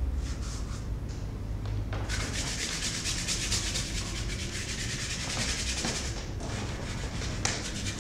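Stiff bristle brush scrubbing oil paint across a canvas, a dry, scratchy rasp. A few short strokes come first, then about four seconds of fast back-and-forth scrubbing, then a few separate strokes near the end.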